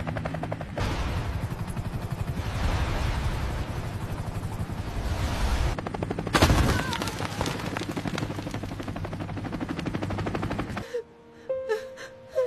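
Helicopter sound effects: fast rotor chop under a dense, rapid gunfire-like rattle, with one loud bang about six and a half seconds in. It cuts off abruptly just before the end.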